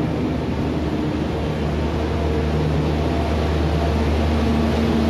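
Passenger train coaches rolling past close by along the platform: a steady rumble of wheels on the rails with a low hum underneath, getting slightly louder.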